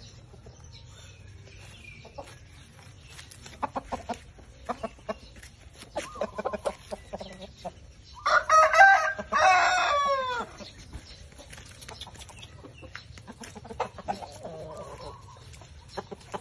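A rooster crows once about halfway through: a loud call of a little over two seconds that drops in pitch at the end. Around it there are softer chicken clucks and scattered short clicks.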